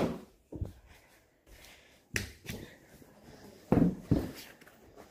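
A few separate knocks and thumps with quiet gaps between them: a sharp click right at the start, then knocks about two seconds in and a louder pair around four seconds in.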